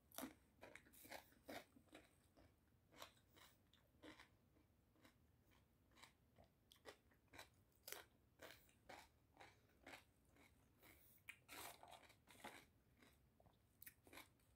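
A person biting and chewing crunchy food close to the microphone: a faint, steady run of short crunches about two a second.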